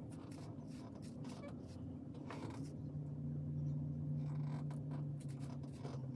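Soft scratching strokes of a comb through the hairline of a lace front wig, over a steady low hum that gets louder about two and a half seconds in.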